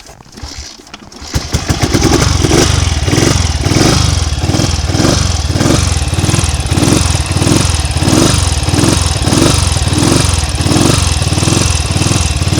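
Triumph Tiger Cub's single-cylinder four-stroke engine catches about a second in and keeps running steadily, its carburettor flooded. The sound swells and fades about twice a second.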